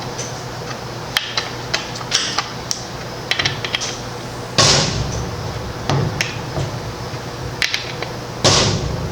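A wrench clicking and knocking on a chainsaw's guide bar nuts as the side cover is tightened down, with two louder scraping rasps, one about halfway through and one near the end.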